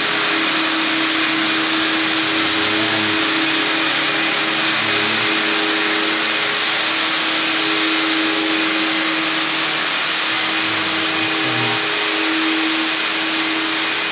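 Electric rotary floor polishing machine running steadily on a wet marble floor: a constant motor hum under a broad hiss.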